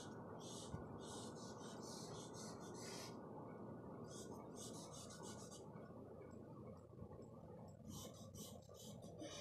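Faint scratching of a charcoal stick across drawing paper, in quick back-and-forth strokes. The strokes come in a few clusters with short pauses between them, one pause about three seconds in and another about six seconds in.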